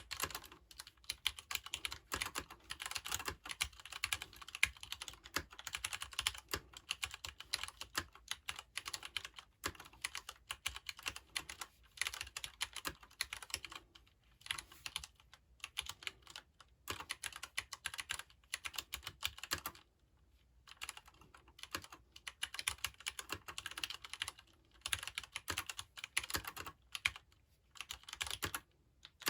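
Leopold FC750R PD mechanical keyboard with Cherry MX Brown switches being typed on: dense runs of quick keystrokes, with the switches' soft, non-clicky tactile clack, broken by a few short pauses.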